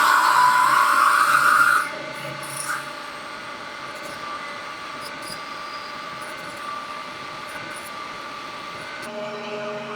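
Schaublin 125 CNC lathe drilling out round stock. For the first two seconds or so there is a loud, high screech of the drill cutting, then a quieter, steady cutting and running noise. About nine seconds in, a lower steady hum sets in.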